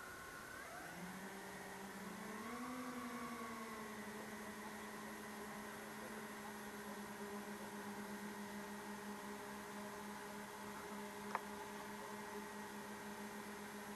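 Brushless electric motors and propellers of an RC aircraft spinning up, the pitch rising and wavering for a couple of seconds, then settling into a steady hum. A single sharp click sounds late on.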